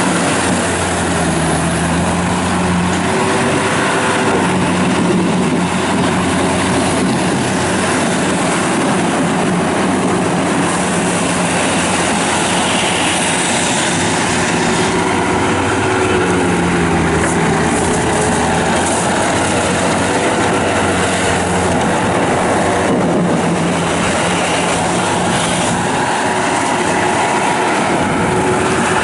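Bobcat T190 rubber-track skid steer loader's diesel engine running under work, its pitch rising and falling a few times as the machine is driven and operated.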